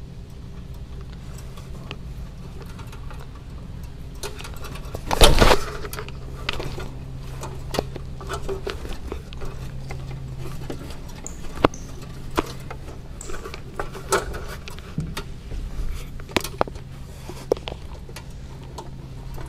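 Handling noise from performers carrying a body across a stage: scattered knocks, clicks and rustles, with one louder bump about five seconds in, over a steady low hum.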